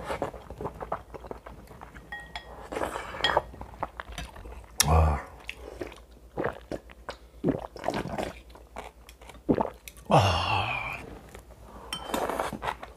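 Close-up eating sounds: wet chewing and smacking of rice and mussels in hot broth, with loud slurps of broth and short clicks of a spoon and chopsticks against a ceramic bowl.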